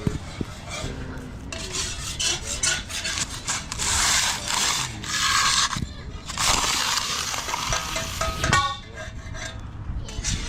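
Rough scraping and rubbing in several long strokes, with a short break around the middle.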